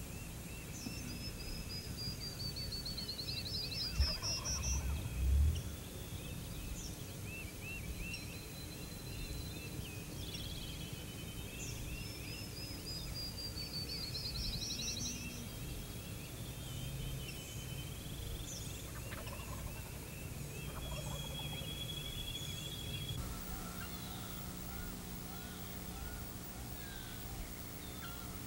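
A wild turkey gobbler gobbling, with small songbirds trilling and whistling throughout. A low steady hum comes in near the end.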